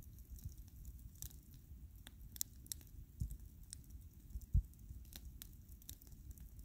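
Wood bonfire burning, with a low steady rumble and scattered sharp crackles and pops from the burning wood. A louder low thump comes about four and a half seconds in.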